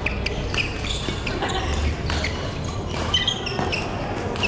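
Badminton rally: sharp racket strikes on the shuttlecock at irregular intervals, mixed with short high squeaks of court shoes on the mat.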